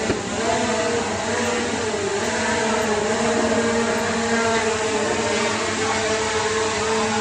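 Small folding quadcopter drone in flight, its propellers and motors giving a steady buzzing whine whose pitch wavers slightly as it holds a stable hover on a test flight after repair.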